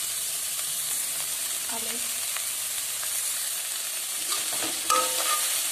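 Chicken momo filling of shredded cabbage and onion sizzling in a hot metal wok as it is stir-fried, the metal spoon scraping through it. A sharp metal clink of the spoon against the wok near the end.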